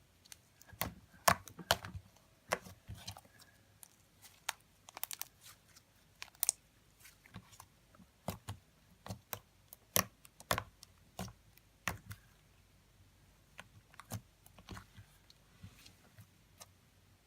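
Slime being played with by hand: irregular sharp clicks and pops as it is poked, squeezed and stretched.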